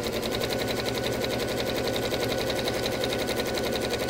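Juki electric sewing machine running at a steady speed, the needle stitching in a fast, even rhythm as a zip is sewn onto fabric.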